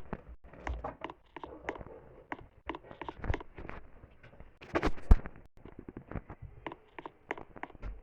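Irregular clicks, taps and knocks, with a louder knock about five seconds in.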